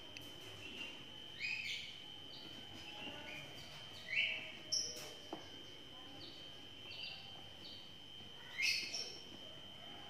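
Young lovebirds calling: four loud, short, harsh chirps, two of them close together in the middle, over a run of soft, high, repeated cheeps.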